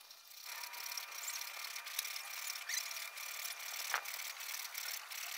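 Hacksaw cutting through a PVC pipe to take off a thin ring, in a steady run of back-and-forth strokes.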